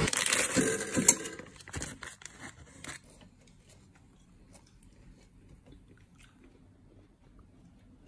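A plastic bag of frozen beef meatballs crinkling and rustling, with several sharp clicks, the loudest about a second in. After about three seconds it gives way to a low background with only a few faint light taps.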